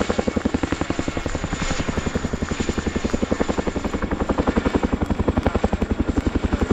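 RAF Boeing CH-47 Chinook's twin tandem rotors beating overhead: a rapid, even blade chop over the whine of the turbines, growing a little louder in the second half.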